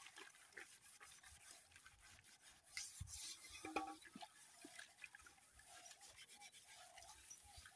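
Faint scratchy scrubbing of a metal cooking pot's inside with a scouring pad, in quick uneven strokes.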